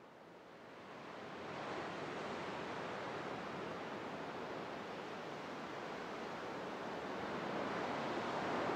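Ambient electronic music: a surf-like wash of noise swells in over about two seconds, then holds steady, with no melody or pitched notes yet.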